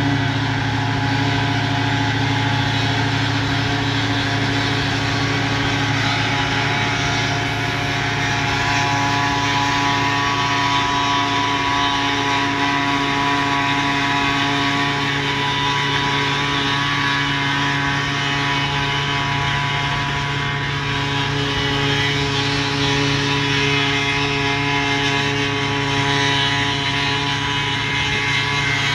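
Vintage tractor's engine and a pull-type forage harvester running steadily while chopping standing corn for silage: a constant mechanical drone with a steady hum, with a few higher tones joining about nine seconds in.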